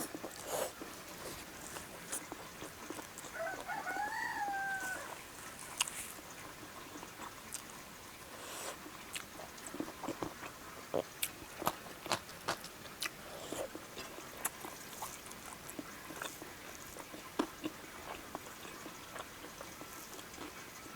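A chicken calls once in the background about three seconds in: a single pitched call of under two seconds that rises and then falls. Around it are scattered soft clicks and chewing sounds of someone eating.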